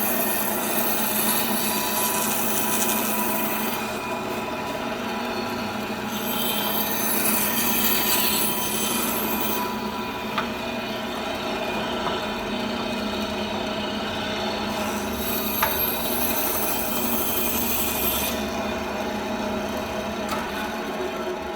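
LEM electric meat band saw running steadily, its blade cutting through beef rib bone in three spells of harsh rasping, with a couple of sharp clicks between them.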